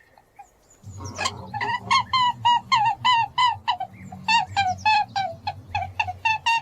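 A rapid series of short, high, squeaking animal calls, about four a second, each dipping in pitch, with a brief pause midway, over a low steady hum.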